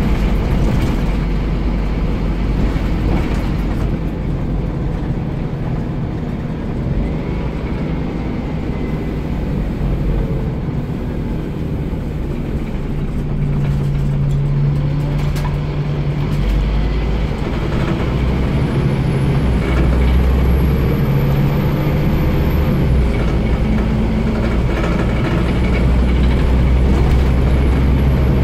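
Scania CN230UB OmniCity bus's five-cylinder 9-litre diesel running under way, heard from the rear of the saloon, its low engine note rising and falling as the bus pulls away and eases off, with a few light rattles from the bodywork.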